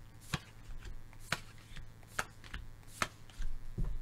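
Tarot cards being shuffled by hand: sharp card slaps about once a second with soft rustling of the deck between.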